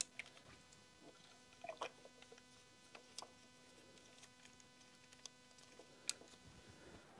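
Near silence with a few faint plastic clicks and light knocks as ignition coil packs are pressed down into place by a gloved hand, the sharpest click about six seconds in, over a faint steady hum.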